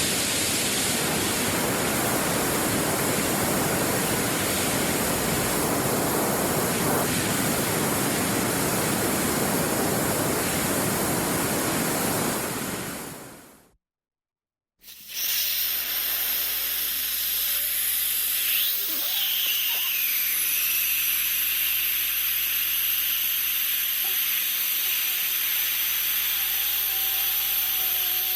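Air escaping under pressure, a steady full-bodied rush of hiss that fades out after about thirteen seconds. After a second of silence, a second, thinner and higher hiss of escaping air starts, with a low hum beneath it and faint whistling tones drifting in and out.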